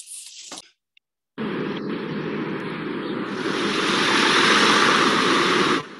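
Film soundtrack played through a Zoom screen share: after a brief hiss, a loud steady rushing noise comes in about a second and a half in, grows louder and brighter around halfway, and cuts off suddenly just before the end, leaving a fainter rush.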